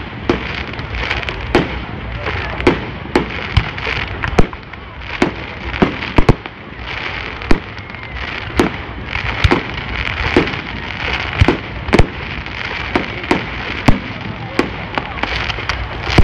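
Fireworks display: aerial shells bursting in a rapid string of sharp bangs, about one to two a second, over a steady noisy din.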